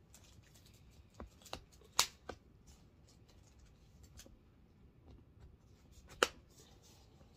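Plastic clicks and handling of a padded weighted hula hoop's push-fit sections being pressed together: a few light clicks, then a sharp snap about two seconds in and another about six seconds in. The click is the sign of a joint locking into place.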